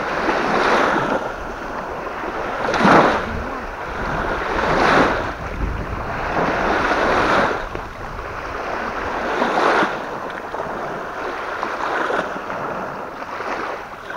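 Wind-driven waves washing in on the reservoir shore, a surge of splashing about every two to two and a half seconds, with strong wind rumbling on the microphone.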